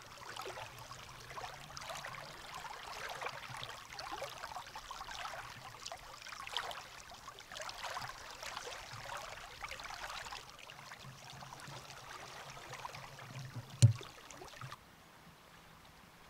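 Water of a high, muddy river rushing and splashing, with a single sharp knock near the end. The sound then drops away abruptly to a faint hiss.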